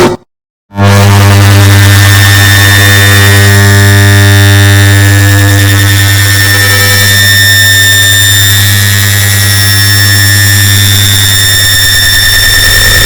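An air conditioner's turn-on sound, multiplied and boosted into a loud, harsh, distorted electric drone. It cuts out for half a second near the start, then comes back as a steady low hum with a high whine over it, shifting slightly near the end.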